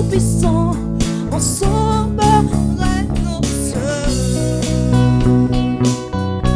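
Live worship band playing: electric guitar, bass guitar and electronic drums, with a voice singing a wavering melody over the first few seconds.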